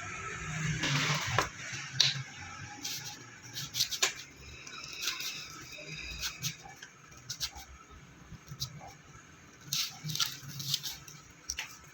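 Workshop hand work on transformer parts: irregular taps, clicks and knocks of tools and metal parts being handled, over a low background hum.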